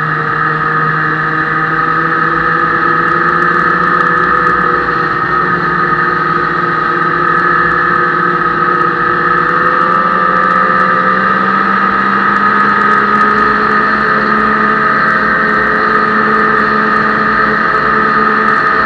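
Ski-Doo MXZ snowmobile engine running under way, its pitch rising slowly and evenly as the sled gathers speed, with a steady high whine over the engine note.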